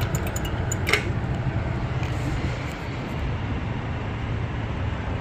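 Road traffic moving through an intersection: a steady low rumble of passing vehicles, with a brief sharper sound about a second in.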